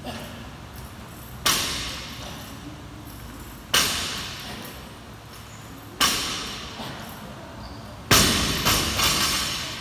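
Loaded barbell dropped from the shoulders onto rubber gym flooring after each power clean, four times about two seconds apart: each drop is a sharp bang of the plates whose ringing and rattle dies away over about a second. The last drop bounces with two smaller knocks.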